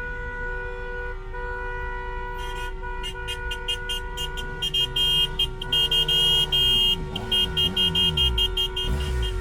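Traffic jam of car horns honking: several long held horns at once, then many short rapid toots from about three seconds in, growing louder. Near the end, engines rev up and down under the horns.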